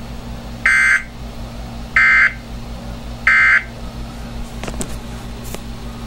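A Midland weather alert radio's speaker sending three short warbling data bursts about a second and a half apart: the SAME end-of-message code ("NNNN") that closes an emergency alert broadcast. A faint steady hum runs beneath.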